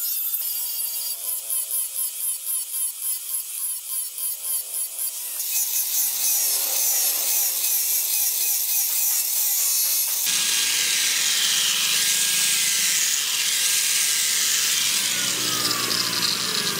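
Electric angle grinder with an abrasive disc grinding the spring-steel blade of a machete, the disc pushed over the metal in rhythmic strokes of about two to three a second. About five and again about ten seconds in, the sound changes to a steadier high-pitched grinding as a sanding pad and then another grinder work the blade.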